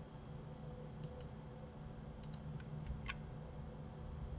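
Faint clicks from a computer mouse and keyboard: a quick pair about a second in, another pair a little past two seconds, and a single click about three seconds in, over a steady low hum.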